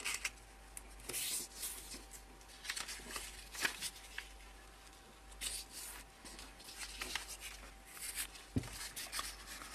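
Paper being folded and creased by hand: intermittent soft rustles and crinkles as a small strip of paper is worked, with a light tap near the end.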